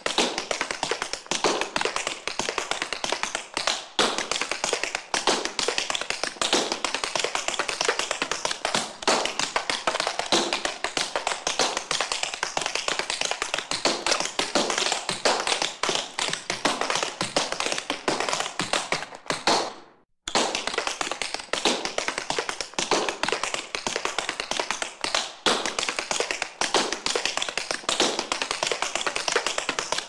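Tap dancing: the metal taps of tap shoes striking a hard floor in a fast, continuous stream of sharp clicks. There is a brief break of about half a second roughly two-thirds of the way through.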